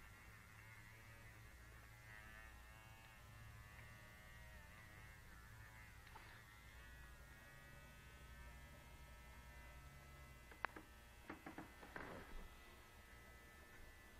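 Faint electric buzz of a battery-powered vibrator running against a cat's face, its pitch wavering as it is pressed on the fur. A few short sharp clicks come about two-thirds of the way through.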